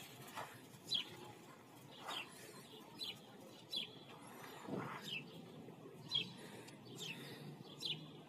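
A small songbird chirping over and over: short, high chirps that fall in pitch, roughly one a second.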